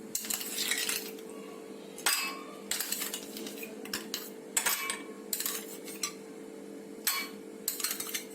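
Ice cubes dropped into drinking glasses, clinking sharply against the glass in irregular clusters every second or two.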